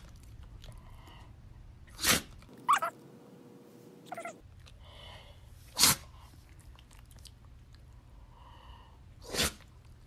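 A Shih Tzu dog sneezing repeatedly in a sneezing fit: several short, sharp sneezes a couple of seconds apart.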